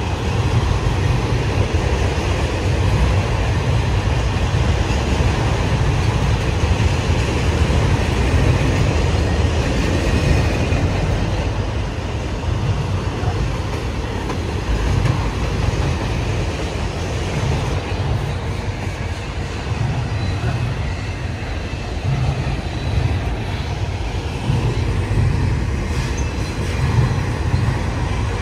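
A train rolling past on the track: a continuous rumble of the cars that eases a little midway and picks up again near the end.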